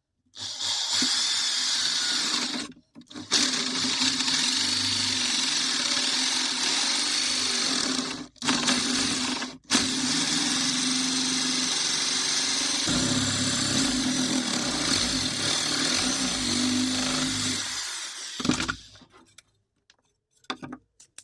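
A small electric motor, like a power tool's, running steadily with a high hiss, cutting out briefly three times and stopping for good a little before the end.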